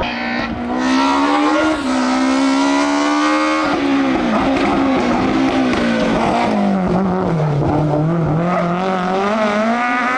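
BMW M3 E30 Group A rally car's four-cylinder engine at full throttle. It revs up, drops in pitch briefly at a gear change about two seconds in, and climbs again. A few seconds in the pitch sinks steadily to a low point, then rises once more near the end.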